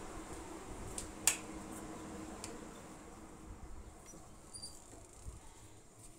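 Faint steady room noise with one sharp click about a second in, a few fainter ticks, and a couple of brief, faint high chirps near the middle.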